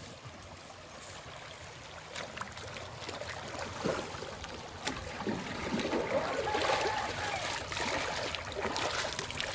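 Shallow stream running, then from about four seconds in, louder sloshing and splashing as metal watering cans are dipped and filled and feet wade through the water.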